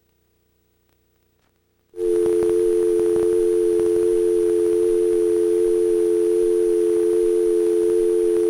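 Near silence, then about two seconds in a loud, steady North American telephone dial tone starts abruptly and holds without a break, heard over an open phone line.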